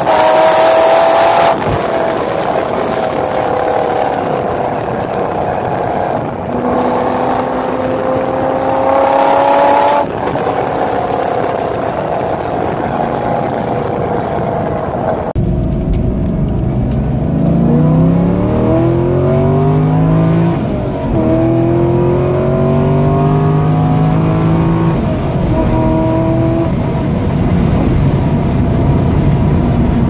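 2001 Corvette Z06's LS6 V8 at wide-open throttle through long-tube headers, test pipes in place of the catalytic converters, an off-road X-pipe and a titanium axle-back. For the first half the exhaust is heard from outside the car. About halfway through it switches to inside the cabin, where the engine sounds deeper and climbs in pitch again and again, breaking off between the climbs as it changes gear.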